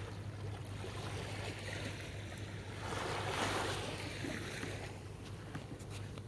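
Small waves lapping on a sandy beach, one wash swelling up about three seconds in and then fading, over a steady low rumble.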